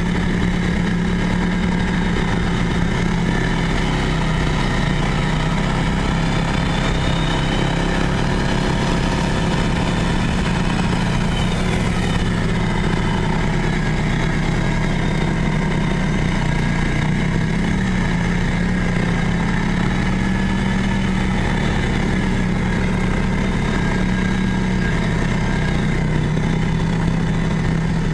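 Snorkeled ATV engine running steadily at cruising speed while the quad wades up a muddy creek. The pitch holds nearly constant, with a slight rise and fall partway through.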